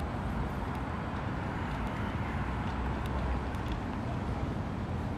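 Steady outdoor city street ambience: a low rumble of traffic with a few faint scattered clicks.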